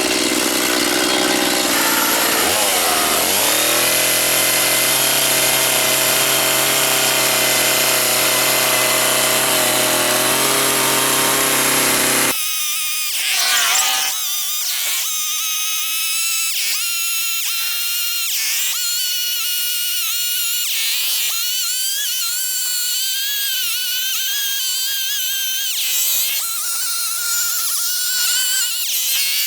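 Gas chainsaw running at high revs as its bar tip is pushed into a cedar log to cut out pieces. About twelve seconds in the sound changes abruptly: the deep engine note drops away, leaving a higher, wavering whine that rises and falls repeatedly.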